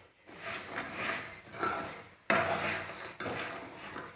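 Peanuts and salt being stirred in a hot metal pot with a metal spoon: a dry scraping and rattling that starts afresh abruptly about two and three seconds in.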